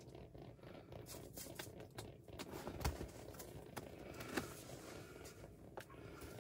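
Faint rustling and scattered light clicks of hands handling small fishing tackle, with the loudest click about three seconds in.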